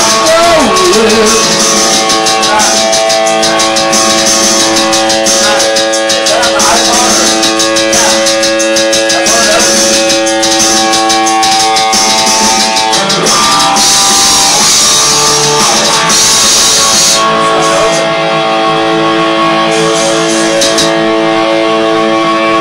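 Electric guitar played loud through an amplifier, with chords and single notes held so they ring on at steady pitch.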